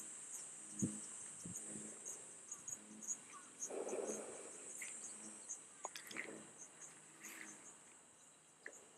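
Steady high-pitched chorus of insects buzzing in the summer vegetation, with a few soft low knocks in the first two seconds and a brief rustle about four seconds in.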